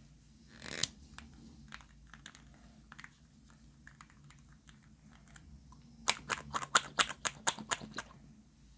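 Slime being poked and pressed by fingers, giving sharp clicking pops: a soft swish about a second in, scattered single clicks, then a quick run of about six clicks a second near the end.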